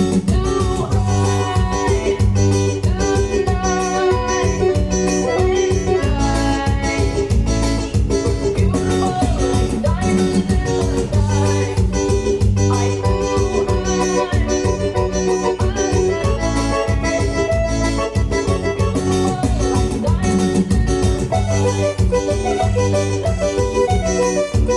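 Forró music with a steady beat and heavy bass.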